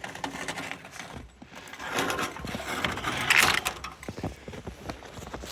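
Rustling, knocking and scraping as a dairy goat is led through the barn to be milked. There is a louder scraping noise about three and a half seconds in.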